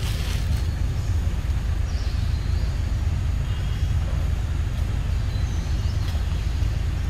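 A steady low rumble, with faint high chirps about two seconds in and again near six seconds.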